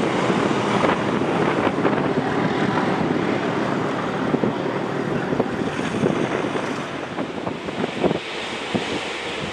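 Wind rushing on the microphone over the noise of a British Rail Class 37 diesel locomotive and its rail head treatment train moving away, slowly fading, with a few sharp knocks of wind buffeting near the end.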